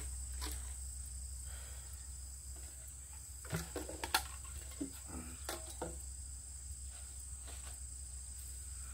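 A steady high-pitched insect drone in the background, with rustling and crackling of weeds and cut grass being pulled and gathered by hand; the sharpest crackles come a little past the middle.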